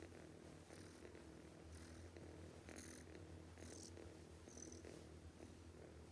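A sleeping cat's faint, continuous low rumble, the snore-like purring of its breathing, with soft breathy hisses about once a second.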